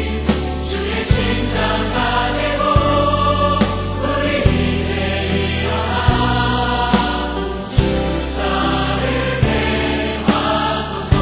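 Christian worship song sung by a choir over a band, with a steady bass and a regular beat.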